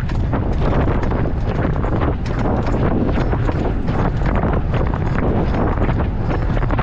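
Wind buffeting the microphone of a camera on a moving fixed-gear bicycle, loud and steady, with quick irregular clicks and knocks running through it.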